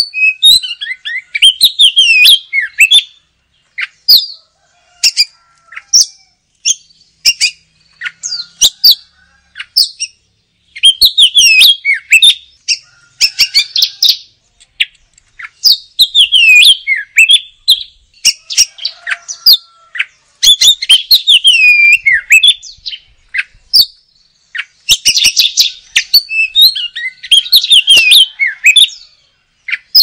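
Oriental magpie-robin (kacer) in full, lively song: phrases of rapid, varied whistled notes that glide up and down, mixed with sharp clicks and broken by short pauses.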